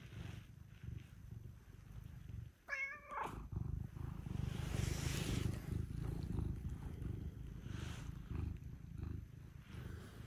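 Blue British shorthair cat purring close to the microphone, a steady low pulsing rumble, with a short meow about three seconds in. Soft rustles of fur brushing the microphone come through over the purr.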